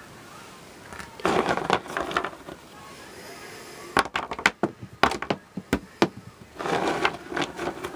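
Small plastic pony figurines dropped onto a wooden box top, landing as a quick series of sharp clicks and knocks about four to six seconds in, with scuffling handling noise before and after.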